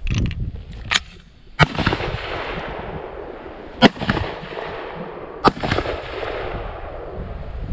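Three rifle shots, each followed by a rolling echo that dies away over a second or more, coming about two seconds apart. A shorter, sharp clack without an echo comes about a second in.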